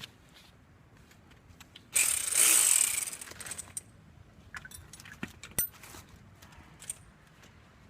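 A power tool runs for about a second, starting about two seconds in, driving in a brake caliper bolt, followed by scattered sharp metal clicks and clinks of tools and parts.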